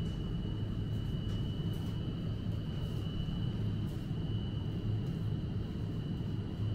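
Steady low hum of supermarket background noise, likely ventilation and refrigeration, with a faint constant high-pitched whine over it and a few faint clicks.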